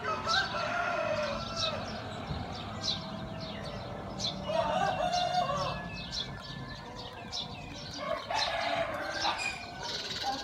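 Roosters crowing about three times, over the steady chirping of small birds.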